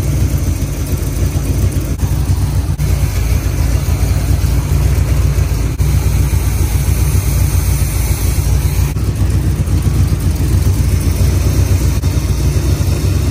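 Oldsmobile 403 V8 running at idle on a stock four-barrel Quadrajet carburetor, with a choppy, uneven idle: the bone-stock carburetor does not suit the engine.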